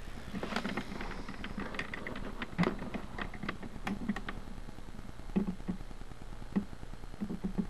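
Handling noise: irregular light clicks and ticks with a few soft knocks, coming in uneven clusters.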